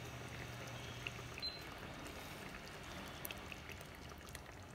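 Hot, soupy sardine-and-chayote stew faintly bubbling and crackling as it simmers down in the pan, with small ticks over a soft hiss.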